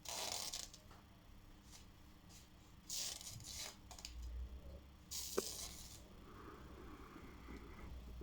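Kitchen handling sounds: three short bursts of rustling or scraping, with a sharp click a little after five seconds in.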